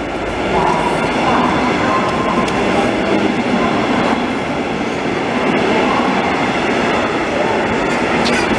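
Double-deck regional express train pulling into a station platform, its coaches rolling past close by with steady wheel and running noise. It grows louder about half a second in, as the train draws level.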